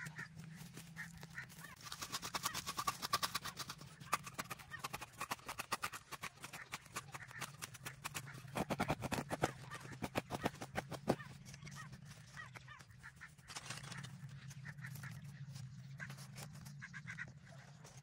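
Digging and scraping in dry soil by hand, then a metal can being pushed and twisted into the hole: a quick run of scratches and small knocks, loudest about two to four seconds in and again around nine to eleven seconds in. A steady low hum runs underneath.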